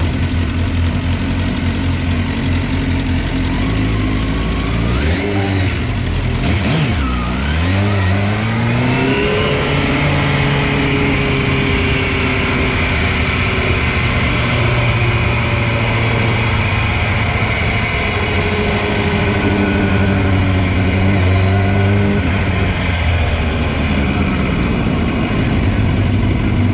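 Motorcycle engine heard from a camera mounted on the bike as it laps a track: the revs drop about six seconds in, then climb quickly and hold high, rising and easing slightly as it goes through the bends.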